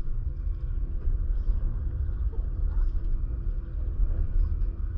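A small boat's engine running steadily, heard as a low rumble with a faint steady hum above it.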